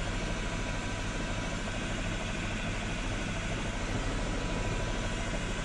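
News helicopter's engine and rotor noise heard from inside the cabin through the crew's open microphone: a steady drone with a faint steady whine above it.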